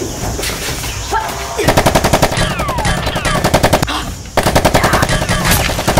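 Rapid automatic gunfire: a machine-gun sound effect standing in for a toy foam blaster. It comes in two bursts of about two seconds each, with a brief break about four seconds in, and falling whistling tones over the first burst.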